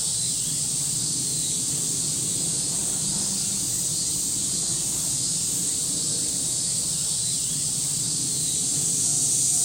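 Summer cicadas droning in a steady chorus, with a low, even background hum beneath.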